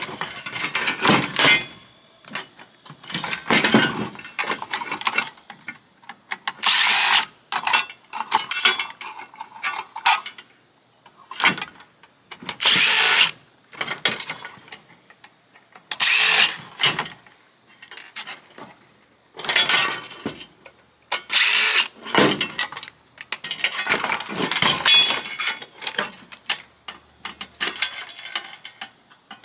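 Power drill running in about a dozen short bursts of about a second each, with smaller clatter between them, while a scrapped oscilloscope's transformer is taken apart.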